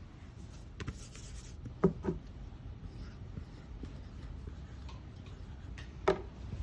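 Light handling sounds at a whiteboard: soft rubbing with a brief hiss about a second in, two short knocks about two seconds in and one more near the end.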